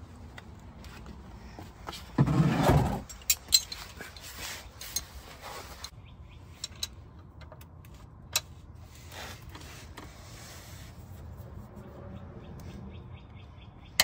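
Hand-tool handling noise under a car at the oil drain plug: metal clinks of a combination wrench and scrapes against a plastic drain pan and concrete. A louder scraping rustle comes about two seconds in, and a quick run of small ticks near the end.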